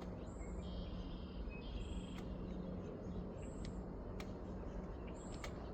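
Small birds calling: short, high whistled notes repeating every second or two, with a couple of lower chirps, over a steady low background rumble.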